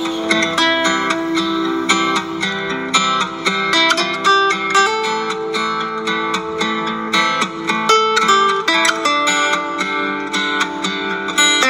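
Background music: a plucked acoustic guitar playing a melody of short, quickly picked notes.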